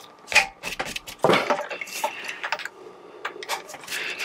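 Hand tools clinking and knocking against the metal fittings around the fuel filter of a Perkins 4108 diesel engine: a handful of sharp metal clicks, the loudest about a second in.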